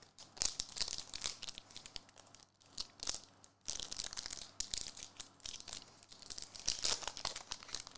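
Foil trading-card pack wrapper being torn open and crinkled, in several irregular crackling bursts.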